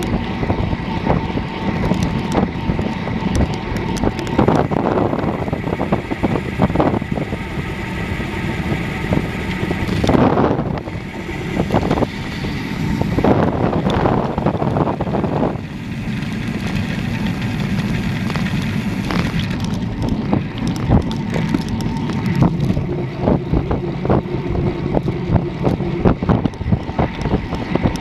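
Wind rushing over a bike-mounted camera's microphone as a road bike on Zipp 404 carbon wheels and 23 mm Continental tyres rolls fast over asphalt, with frequent small rattles and knocks from the bike over the road surface. The rush swells louder a few times around the middle.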